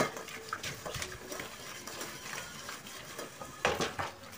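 Metal cooking pot being scrubbed with steel wool in soapy water, with scraping, small clinks and a louder knock near the end.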